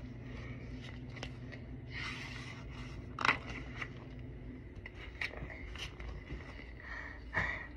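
Pages of a large picture book being turned by hand: soft paper rustling and scraping, with a sharp tap a little over three seconds in and a few fainter ticks after it.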